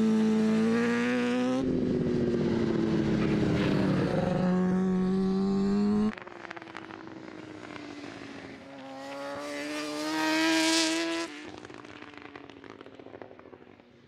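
BMW S 1000 RR superbike's inline-four engine running at high revs on a race track, its pitch rising and falling with throttle and gear changes. It is loud for the first six seconds, then quieter, swelling as the bike passes about ten seconds in and fading away.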